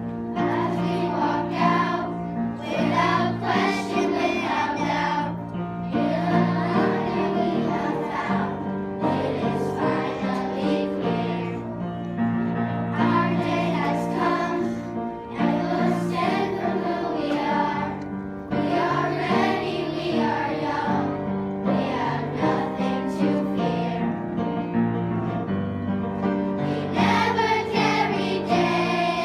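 A choir singing a song over sustained instrumental chords, in phrases of a few seconds each.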